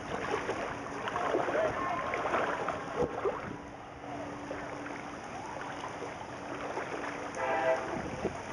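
Floodwater sloshing and splashing, uneven and busiest in the first few seconds, with a short pitched sound near the end.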